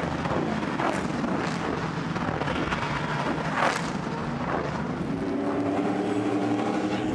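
Race truck engines running hard in a pack, revving up and down, with a sharp crack about three and a half seconds in. Later one engine holds a steady pitch.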